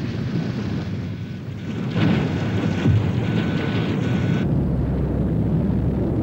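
A4 (V-2) rocket motor roaring at launch, a steady low rumble. It grows louder about two seconds in, with a faint thin whistle at times, and shifts to a deeper, smoother rumble about four and a half seconds in.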